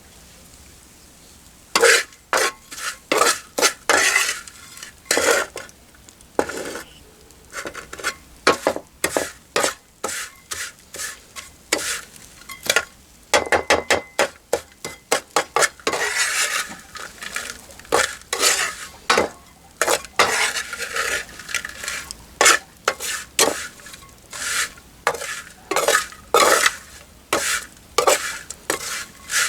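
A utensil stirring in cookware, clinking and scraping against it in an irregular run of sharp strikes that starts about two seconds in.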